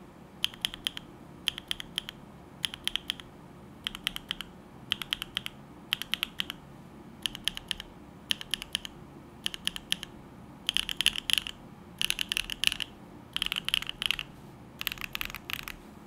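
Typing on a Neo65 65% mechanical keyboard fitted with hand-lubed Bsun Aniya switches on a carbon fibre plate, mid foam in the case and GMK Grand Prix keycaps. It comes as short runs of several quick keystrokes, about one run a second, and the runs are longer and louder near the end.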